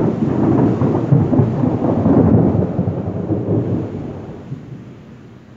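Thunder rumbling loudly just after a sudden clap, with a crackling roll for about three seconds, then dying away.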